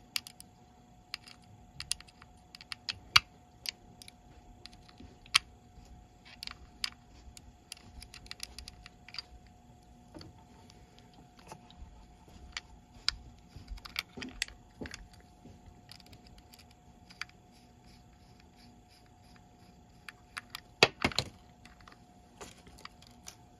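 Small screwdriver working at the battery-cover screw of a plastic infrared thermometer, with the tool and the carabiner clip being handled: scattered light clicks and taps, and a quick cluster of louder ones near the end.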